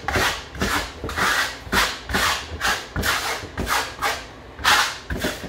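Spatula scraping concrete-effect plaster across a plywood board in short repeated strokes, about two a second, as the wet coating is spread and blended. There is a brief pause about four seconds in, then one louder stroke.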